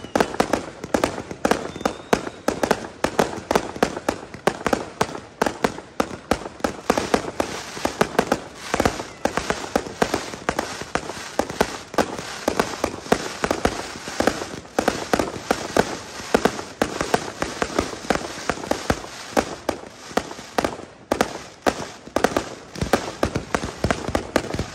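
Aerial fireworks display: a dense barrage of shell bursts, with bangs and crackling following one another several times a second.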